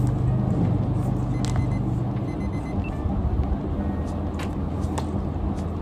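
A steady low rumble with a hum that drops in pitch about two seconds in, and a few sharp clicks of a tablet being handled.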